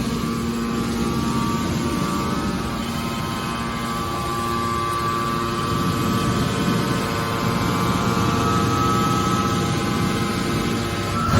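Hydraulic horizontal metal baler running, its pump and motor giving a steady hum with a whine that creeps slightly higher in pitch. A sharp knock comes at the very end.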